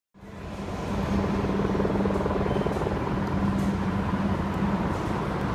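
Steady mechanical hum, a constant low tone over a wash of noise, fading in at the start.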